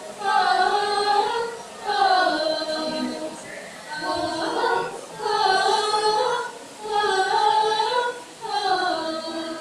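A mixed choir of young men and women singing together unaccompanied, a wordless vocal line in about six phrases of a second and a half each, with short breaks between.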